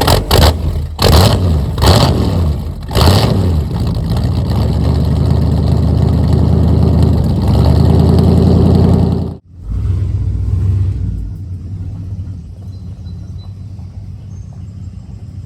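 Ford 302 V8 in a 1982 F-150 running through a 3-to-4-inch step exhaust, with a few short loud throttle bursts in the first three seconds. It then pulls steady and loud for about five seconds, drops off sharply about nine seconds in, and settles to a quieter steady run.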